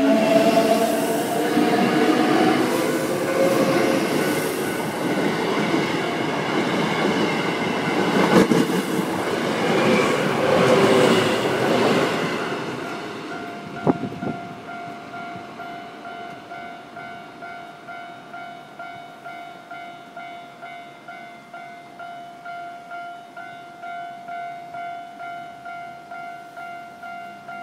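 A Hankyu commuter train passes close at speed, its wheels and running noise loud for about thirteen seconds, with a sharp knock just after. Then the Japanese level-crossing warning bell is left ringing on its own, about two dings a second, while the crossing stays closed.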